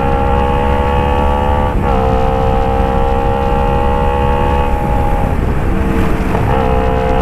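Kawasaki Ninja 250 FI parallel-twin engine through a Phoenix aftermarket exhaust, held at high revs with a steady, horn-like drone. The note dips briefly about two seconds in, drops away about five seconds in, then picks up again near the end.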